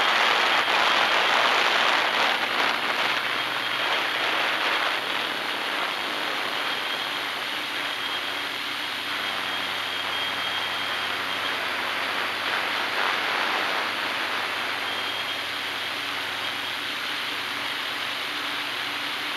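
Hexacopter's brushless motors and propellers whirring steadily in flight, with air rushing past, heard close up from on board. Louder for the first five seconds or so, then even.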